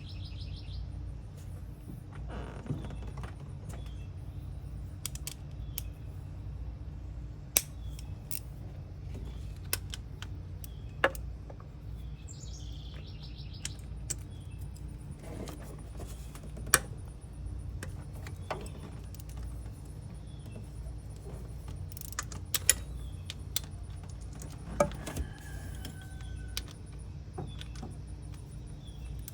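Metal hand tools and bolts clinking, with scattered sharp clicks and knocks while an engine's water pump is unbolted. A steady low hum runs underneath, and a few bird chirps come through.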